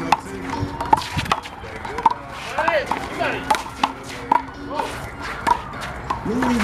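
Handball rally: a rubber handball repeatedly slapped by bare hands and smacking against the wall and ground, a series of sharp cracks about one or two a second, with faint voices in the background.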